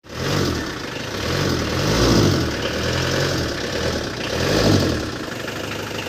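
Mitsubishi L300's 4D56 diesel engine running and being revved up and down several times. It starts and runs now that a new magnetic shut-off valve is fitted to the injection pump, the fix for its hard starting.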